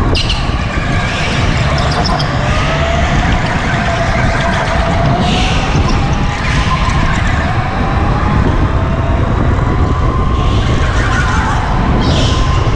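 Go-kart driven hard, heard from on board: a motor whine that rises and falls in pitch with speed over a heavy low rumble, with short tyre squeals through the corners.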